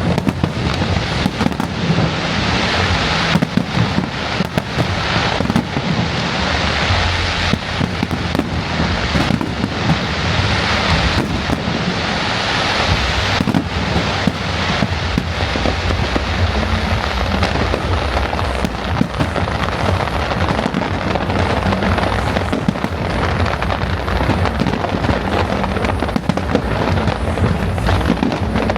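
Fireworks display: a continuous barrage of bangs and dense crackling, with no break.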